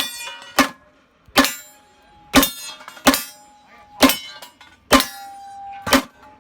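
Pistol shots fired in a steady timed string, about eight shots roughly a second apart, a ringing tone lingering after several of them.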